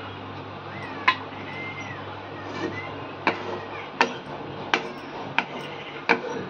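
A spatula knocking against the rim of a kadai while stirring thick gravy: six sharp clacks, one early and five in fairly quick succession over the second half.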